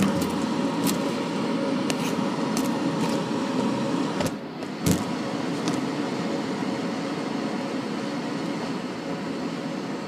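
York gas furnace running: a steady rush of air with a faint even hum, and several sharp clicks and knocks in the first five seconds.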